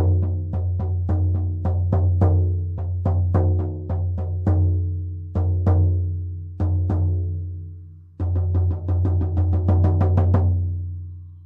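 18-inch buffalo skin shamanic frame drum on an ashwood frame, struck with a firm beater: a deep, booming low note under each stroke. A quick steady beat of about four strokes a second gives way to slower paired beats, then after a brief pause a fast run of strokes that is left to ring out near the end.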